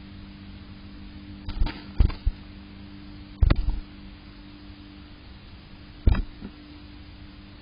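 Chickadee moving about inside a wooden nest box: a handful of short thumps and scrabbles as it shifts in the nest and flutters its wings, the loudest about two and three and a half seconds in and another near six seconds, over a steady low hum.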